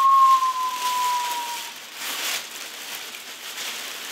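A thin, steady whistling tone, sliding slightly down in pitch, fades out under two seconds in. It is followed by soft rustling and crinkling from a nylon puffer jacket and its packaging being handled.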